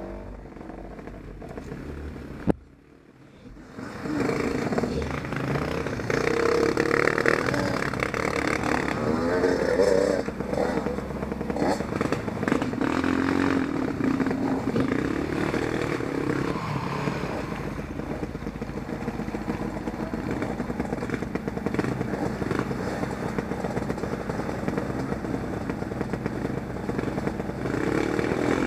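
Off-road motorcycle engine running and revving with changing pitch. A sharp click about two and a half seconds in is followed by a brief lull before the engine sound picks up again.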